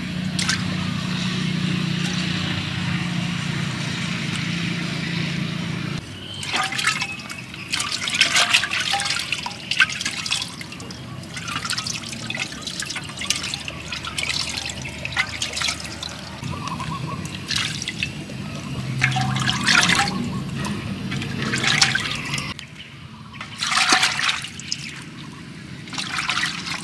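Water in a clay pot as skinned frogs are washed by hand: a steady run of water for about the first six seconds, then irregular splashes and sloshes as hands work the frogs in the water.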